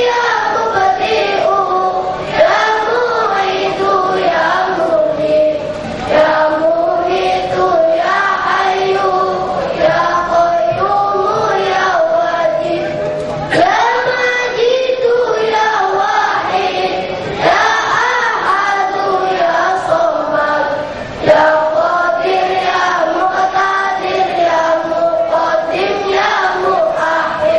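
Choir of boys singing together without instruments, in long sung phrases that begin afresh every few seconds.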